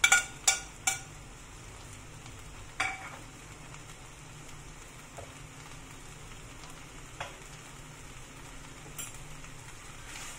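A wok of minced meat, cabbage, potato and tomato frying with a steady sizzle. A few sharp knocks in the first second and another near three seconds, as diced tomatoes are tipped from a plate into the pan, then only fainter ticks.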